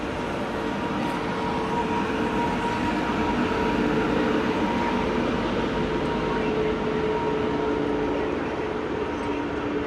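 Train running on the rails: a steady rumble with a few faint sustained tones over it, growing slightly louder about four seconds in and then easing off.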